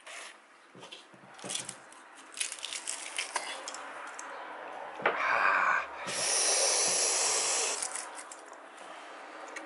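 Crispy bacon being crumbled by hand over mashed potato in a stainless steel bowl, with small scattered crackles and clicks. About five seconds in there is a short louder burst, then a loud steady hiss lasting about two seconds.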